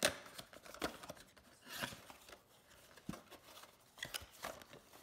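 Small paperboard box being opened by hand: the tuck flap is worked loose and lifted, with irregular scraping and rubbing of cardboard and a few short clicks and snaps, the sharpest right at the start.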